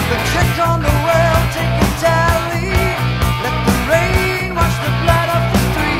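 Heavy metal band recording (NWOBHM, 1984) playing: electric guitars, bass and drums, with a melodic line moving in pitch over a steady low riff.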